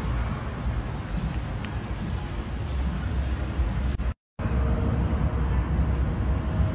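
Steady low outdoor background rumble of the kind road traffic makes, with a thin steady high whine above it; the sound drops out completely for a split second about four seconds in.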